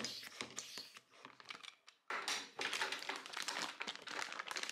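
Plastic vacuum-storage bag around a 3D-printer filament spool crinkling and rustling as it is handled. The sound dies down briefly around the middle, then comes back louder with a sudden start about two seconds in.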